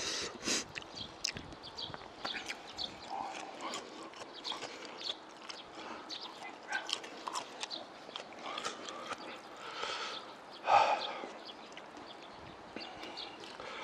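Close-up eating sounds of chewy cold jjolmyeon noodles: wet chewing, smacking and slurping with many short clicks. A loud short sound about eleven seconds in.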